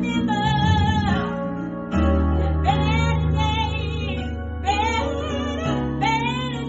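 Gospel song: a singer holding long wavering notes with vibrato over instrumental backing with steady bass notes.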